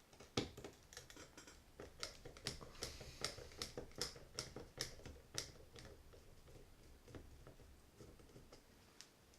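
A screwdriver working a small side-plate screw out of a Penn 260 Slammer spinning reel: a run of light metal clicks and taps, about two a second, that thins out after about five seconds.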